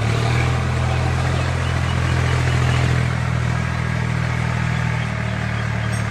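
Steady low tractor-engine hum, a laid-in engine sound running at an even pace without revving.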